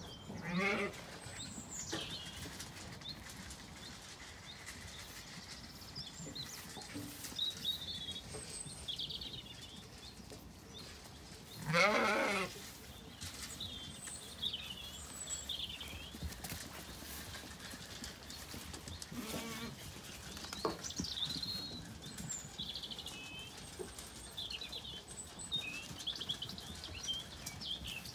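Zwartbles sheep bleating a few times, the loudest a quavering call about twelve seconds in, with fainter bleats near the start and about nineteen seconds in. Small birds chirp throughout.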